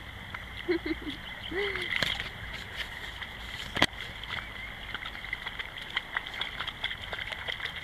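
Shallow stream running steadily, with splashing and sloshing as a dog wades through the water; two sharp splashes stand out, about two seconds in and a louder one near four seconds.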